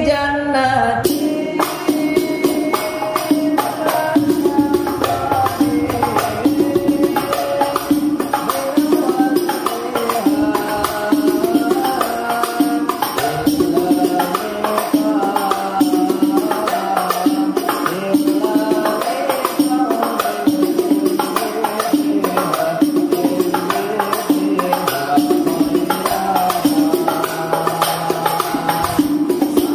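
Background music with a steady beat, led by frame drums with jingles in the manner of rebana hadrah percussion, with a melodic line over it.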